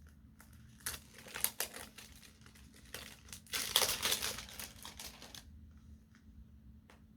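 Packaging crinkling and tearing as it is opened by hand, in a run of crackly bursts from about a second in, loudest around four seconds in, dying away after about five and a half seconds.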